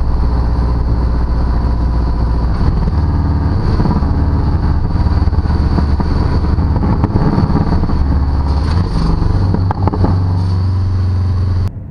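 Porsche 718 Cayman GTS's 2.5-litre turbocharged flat-four heard at its sports exhaust tailpipes with the exhaust valve open in Sport mode, driving at moderate revs, its note changing pitch a few times. A few short crackles come about nine seconds in, and the sound cuts off just before the end.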